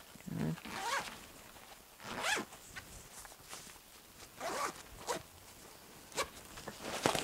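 Zipper on a fabric toiletry organizer bag being pulled shut in several short strokes with brief pauses between them.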